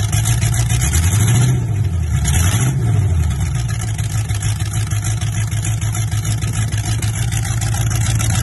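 Supercharged engine of a Holden Statesman rat-rod, blipped twice about a second in, then settling to a steady idle.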